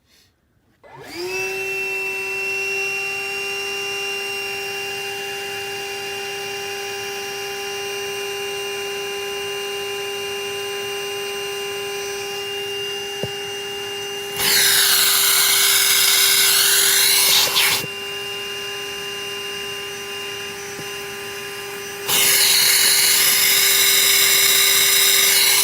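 Wet/dry shop vacuum starts about a second in and runs with a steady whine while clearing a gas furnace's condensate drain line. Twice, for a few seconds each, a much louder rushing hiss comes in as it sucks through the line.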